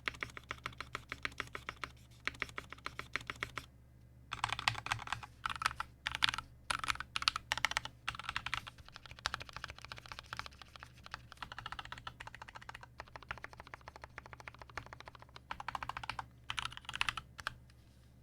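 Custom Tofu60 acrylic-case mechanical keyboard with lubed and filmed Gateron Milky Black linear switches on an aluminium plate and PBT keycaps, no foam in the case, being typed on. An even, fast run of keystrokes for the first few seconds, a brief pause, then quick irregular typing in bursts.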